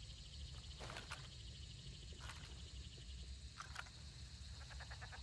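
Faint outdoor background with a steady high-pitched buzz and a low rumble, broken by a few short, quiet clicks and rustles about a second apart.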